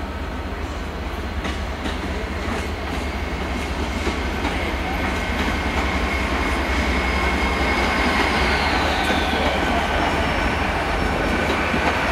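GWR Hitachi intercity express train running along the platform, growing louder as it comes close. There is a steady rumble with several steady whines from its traction equipment, one higher whine that falls in pitch about eight seconds in, and scattered clicks of wheels over rail joints.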